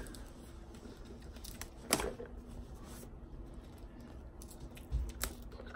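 Faint handling noises from a mailed package being opened: a sharp click about two seconds in, then a dull thump and another click near the end, over a steady low room hum.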